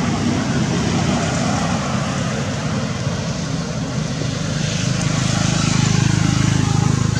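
A motor engine running with a low, steady hum that grows louder over the last couple of seconds.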